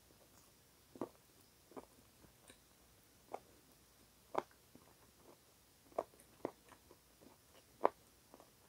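Eating sounds: rotisserie chicken meat being chewed, with a scattering of short, sharp mouth smacks and clicks a second or so apart, the loudest near the end.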